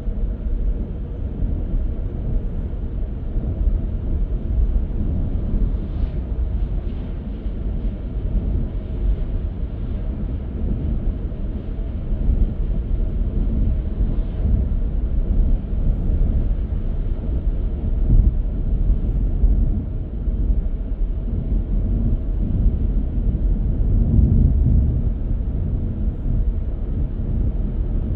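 Car driving on the road: a steady low rumble of tyres and engine, swelling a little at times.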